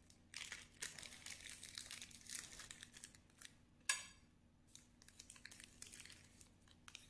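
Faint crinkling and crackling of something being handled, with one sharp click about four seconds in.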